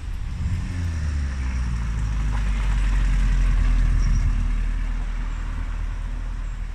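1937 Austin Seven special hill-climb car driving past, its small four-cylinder engine running. It grows louder as the car passes close, loudest three to four seconds in, then fades as it pulls away.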